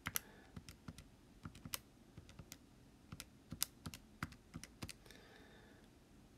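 Keys being tapped in quick, irregular clicks, a number being entered into a calculation; the tapping stops about five seconds in.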